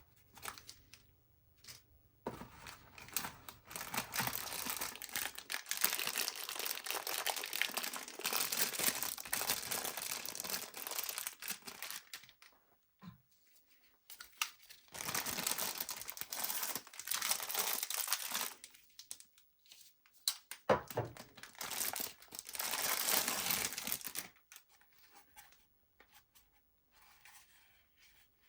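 Knife packaging being unwrapped by hand, crinkling and tearing in three long spells with short pauses between them.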